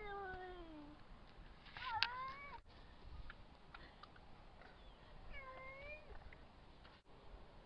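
A cat meowing three times. A falling meow trails off at the start, a sharper one comes about two seconds in, and a softer, wavering one follows midway through.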